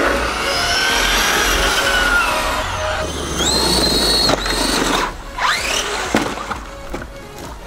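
Traxxas RC car's electric motor whining under throttle, its pitch rising and falling. About three seconds in it climbs sharply and holds high for a second before dropping away.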